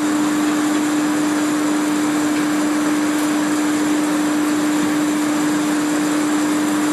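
Ship-loading bucket grain elevator running at speed with its head hood off, the steel head pulley spinning in the open casing. A loud, steady machine hum holds one constant mid-pitched tone over a wide rushing noise, with no change in speed.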